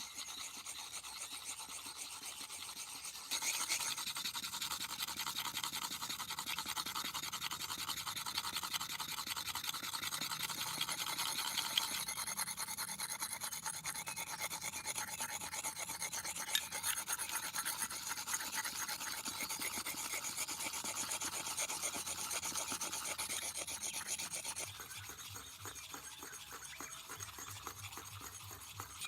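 Fast, steady rasping strokes of something being scraped or filed by hand, growing louder about three seconds in and easing off near the end.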